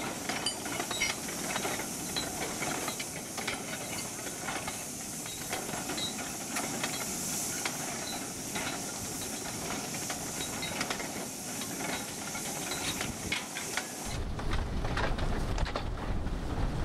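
Steam locomotive hissing steadily, with scattered light knocks and clanks. About three-quarters of the way in, the hiss stops and a low, wind-like rumble takes over.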